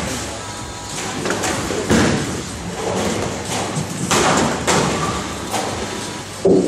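Tenpin bowling balls crashing into pins: a heavy impact about two seconds in, a clatter of pins a couple of seconds later, and another loud thump near the end, over the steady din of the hall.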